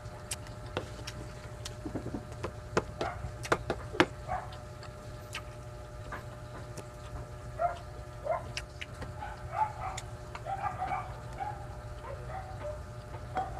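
Close-miked mukbang eating sounds: a wooden spoon clicking and scraping through rice on the tray and mouth sounds of chewing, with a run of sharp clicks about two to four seconds in. Short, squeaky high sounds come and go in the second half over a steady low hum.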